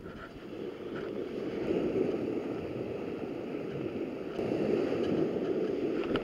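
Small waves washing onto a sandy shore: a steady rushing that swells about two seconds in and again in the second half, with a couple of faint clicks.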